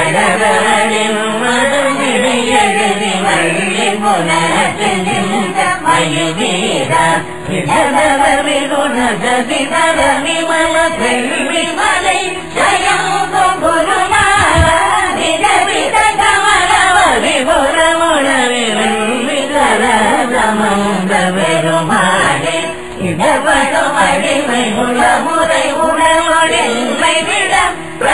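Tamil devotional hymn sung in Carnatic style, the voice carrying long, wavering melodic phrases with brief breaks between them.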